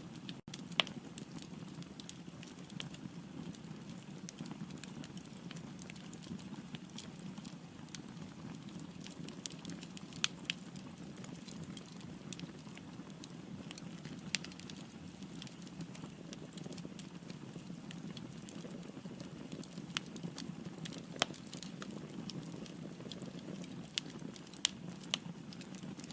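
Firewood burning in a fireplace: a steady low rush of flame with scattered sharp pops and crackles, about a dozen, a few of them louder.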